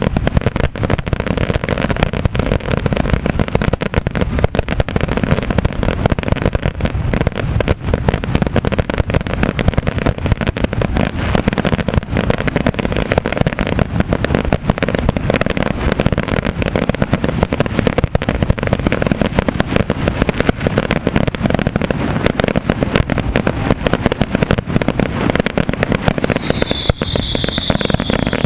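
Fireworks display: a dense, continuous barrage of rapid bangs and crackling shells going off without a break.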